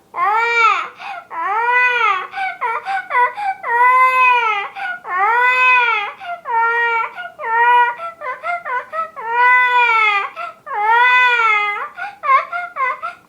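A girl imitating a crying baby with her voice: a run of long wavering wails, each rising and falling in pitch, broken by short hiccuping sobs in between.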